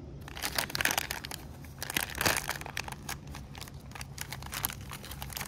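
A foil-lined plastic beef jerky pouch crinkling in the hands as it is torn open across the top, with the loudest rip about two seconds in.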